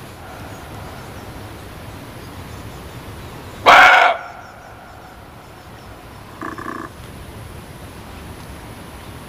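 Barking deer (muntjac) giving one loud, sharp bark about four seconds in, then a shorter, quieter call a couple of seconds later, over a steady background hiss.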